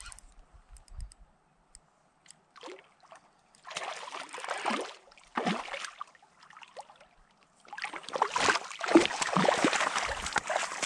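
River water sloshing and splashing in bursts: short ones about three, four and five and a half seconds in, then a longer, louder stretch from about eight seconds on.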